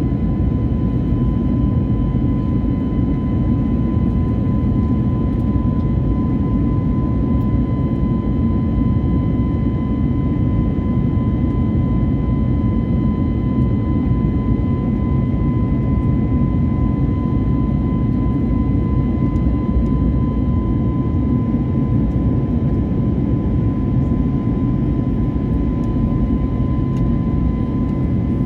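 Jet airliner's engines and airflow heard as a steady low rumble with a thin, even whine over it.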